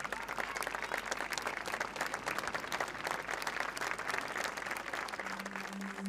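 Crowd applauding, the clapping thinning towards the end. About five seconds in, a steady low musical note begins under it.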